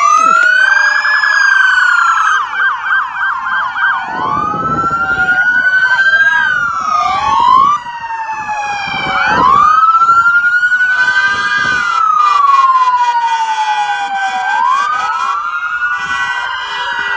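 Electronic sirens on passing police cars, several at once, wailing in overlapping rising and falling sweeps. A fast yelp comes about a second in, and bursts of a rapid pulsing tone come about two-thirds through and again near the end.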